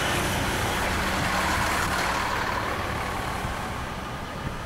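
Fire truck engine running steadily at close range, a continuous low rumble that grows slightly fainter near the end.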